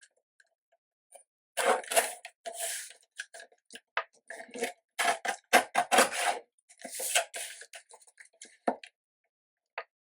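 Scissors cutting paper and cardstock: a run of crisp snips and short rasping cuts, irregularly spaced, as the excess paper is trimmed away.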